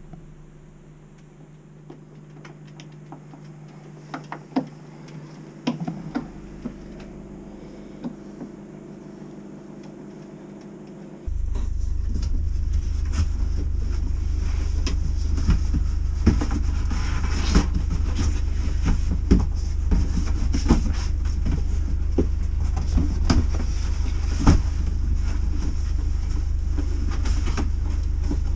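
Picture frames and cardboard boxes being handled while packing, with scattered clicks and knocks. About eleven seconds in, a loud steady low rumble starts suddenly and continues under the knocking.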